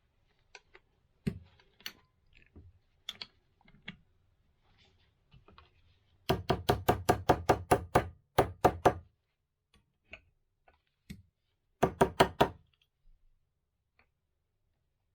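Hand-tool knocks on metal motorcycle fork parts: scattered light clicks and taps, then a quick run of about a dozen hard knocks at roughly six a second, and a short run of four more near the end.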